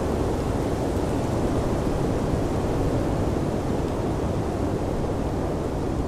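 Blizzard wind blowing steadily as an even, low rush of noise, with no gusts or breaks.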